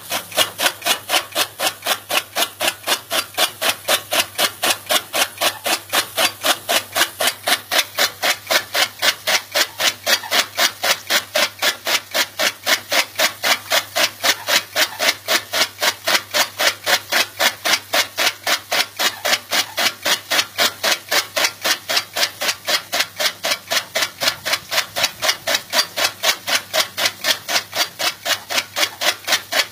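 Rhythmic rubbing strokes at an even pace, about three a second, each a short scratchy stroke.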